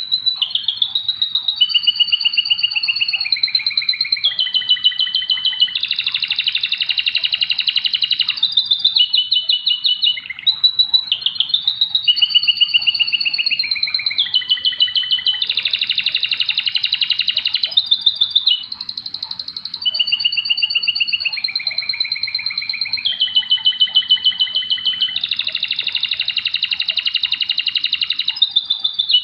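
Domestic canary singing a long, unbroken song of very rapid trills ('rolls'). It switches between higher and lower trill phrases every second or two.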